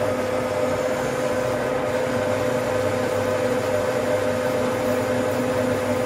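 Metal lathe running with its chuck spinning: a steady mechanical hum with a constant whine.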